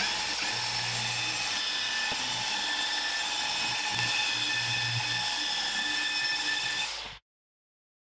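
Electric polisher running steadily, buffing a bare aluminium body panel, with a steady high motor whine over the hiss of the pad; it cuts off abruptly about seven seconds in.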